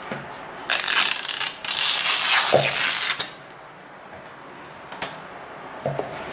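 Crinkling and rustling of a printed edible sheet and its plastic backing as cut-away white strips are peeled off by hand. The rustling is loudest for about two and a half seconds starting about a second in, then settles to a few soft handling sounds.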